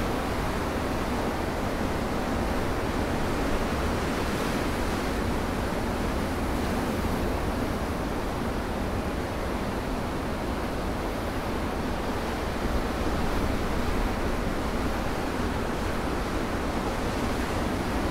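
Ocean surf breaking and washing over a rocky shore: a continuous rush of waves that swells a little about three and a half seconds in and again around thirteen seconds.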